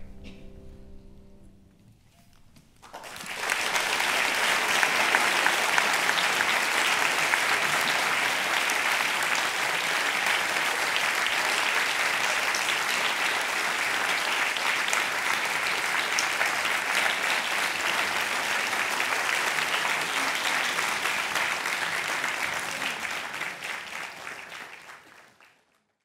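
The choir's final held chord dies away in the first two seconds. After a brief hush, an audience breaks into steady applause, which fades out near the end.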